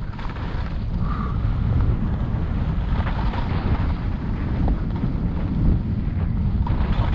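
Wind buffeting the microphone of a skier's action camera at speed, a steady low rush, with the hiss and scrape of skis sliding over packed, tracked snow.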